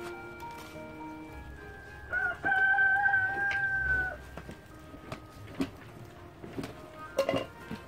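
A rooster crows once, a single long held call of about two seconds, over soft background music. A few light knocks follow near the end.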